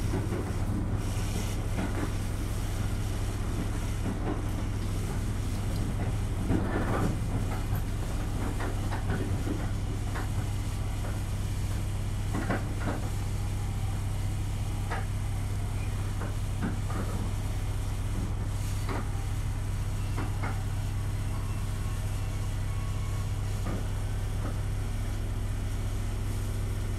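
KiHa 200 series diesel railcar heard from inside the passenger car while running: a steady low drone of the diesel engine and running gear, with scattered light clicks and knocks from the car and rails.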